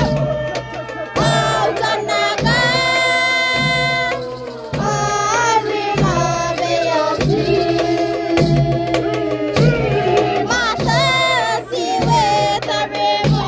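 Music with voices singing over a steady drum beat.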